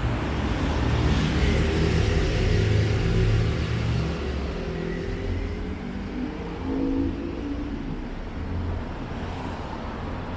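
Cars and a motorcycle passing close on a city street, loudest through the first four seconds, then a lower, steadier traffic noise with another car going by about seven seconds in.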